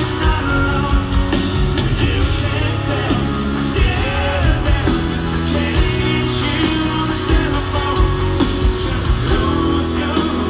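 Rock band playing live: a male lead vocal sings over electric guitars, bass and drums. The sound is heard from among the arena audience.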